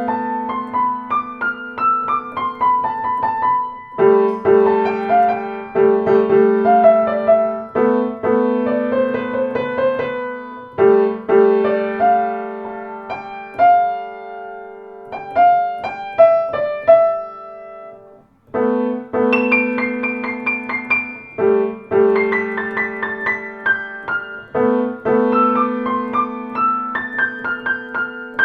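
Blüthner grand piano playing: held low chords under descending runs of notes, in phrases that restart every three to four seconds, with a short break about two-thirds of the way in.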